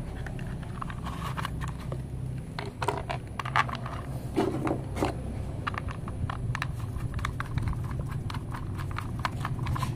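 Hard plastic toy bus parts being handled and fitted together: irregular small clicks, taps and scrapes, with a toy screwdriver working a screw near the end.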